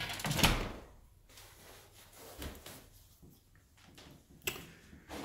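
A thump about half a second in, then quiet room tone with one sharp click near the end.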